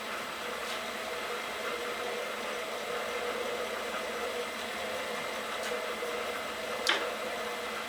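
Milling machine running at high speed with a steady hum. There is a sharp click about seven seconds in and fainter ones earlier.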